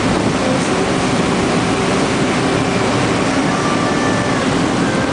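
A small passenger boat's engine running steadily under way, a constant drone mixed with the rush of water from the wake.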